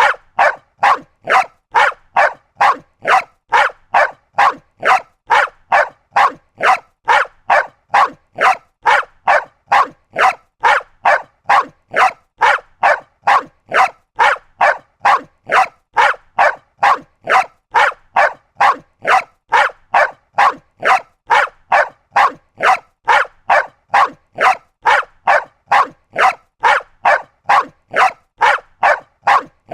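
Small dog barking over and over in a steady, evenly spaced rhythm of about two sharp barks a second, without a pause.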